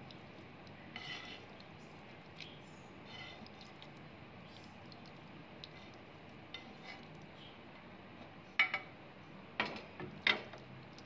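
Faint, wet sounds of sauced pasta being moved in a glass baking dish, then a slotted spatula knocking against the glass three times near the end.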